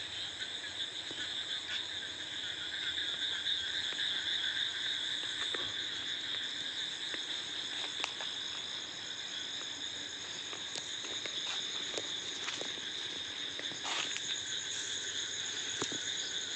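Steady night chorus of calling insects and frogs, a continuous high trill that never lets up. A few faint clicks sound over it, about eight, eleven to twelve, fourteen and sixteen seconds in.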